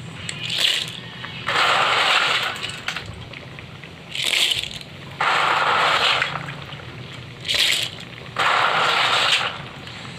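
Rhythmic puffs of breath close to the microphone, about every three and a half seconds: each is a hiss of about a second followed by a short, higher hiss. Underneath, a pan of snails in coconut milk simmers faintly.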